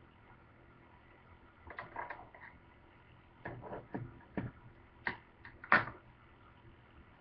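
A scatter of short clicks and knocks from hands handling kitchen scissors and food on a plastic cutting board, with the sharpest knock near the end as the scissors are set down.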